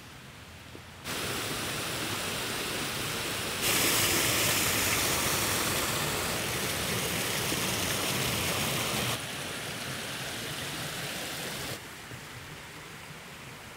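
Rushing water of a woodland beck and its small waterfalls, a steady hiss. It jumps louder about a second in and again near four seconds, then drops back abruptly around nine and twelve seconds.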